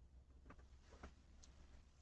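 Near silence: a faint steady low hum with three faint, short ticks about half a second apart.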